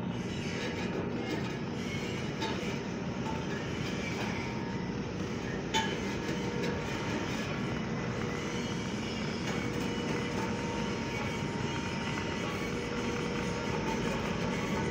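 Steady mechanical din of a metal workshop: a continuous rumble and hiss with faint steady hum tones, and a single sharp knock about six seconds in.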